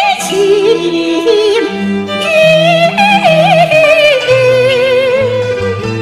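Cantonese opera song (yuequ) sung as a duet recording: a singer holds long, drawn-out notes with a wide wavering vibrato, with a short break about two seconds in, over an instrumental accompaniment with a stepping bass line.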